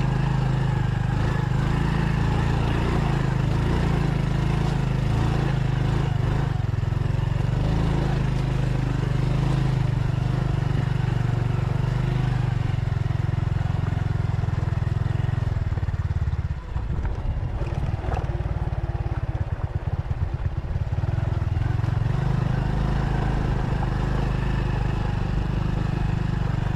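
Motorcycle engine running steadily under load on an uphill dirt track. About two-thirds of the way through, the engine note dips and goes uneven for a few seconds, then steadies again.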